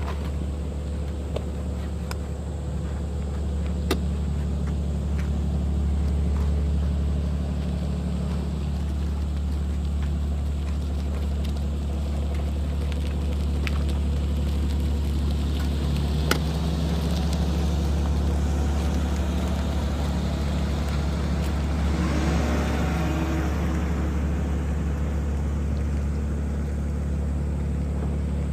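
A boat's diesel engine running steadily as a low, even hum.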